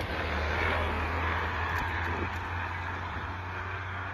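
Heavy truck's diesel engine pulling hard uphill under the load of an excavator on its trailer: a steady low drone with a broad rushing hiss.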